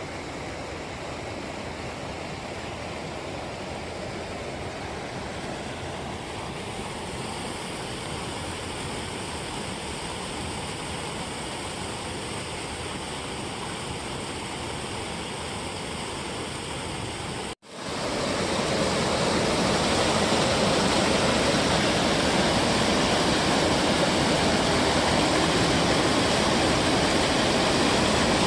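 Water rushing and churning over a low concrete weir, a steady noise. After a brief break about two-thirds of the way in, it comes back louder and fuller.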